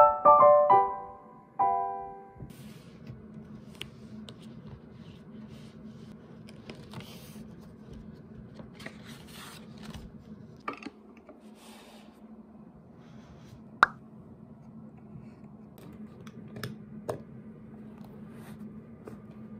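A few piano notes ring out and fade in the first two seconds. Then quiet handling sounds of things being moved on a desk: soft rustles, light knocks and one sharp click about two-thirds of the way in, over a low steady hum.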